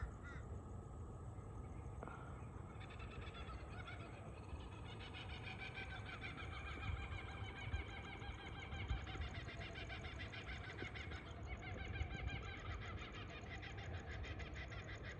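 Laughing kookaburras calling together in a chorus of rapid, repeated cackling calls. The chorus starts about three seconds in and grows fuller as more birds join.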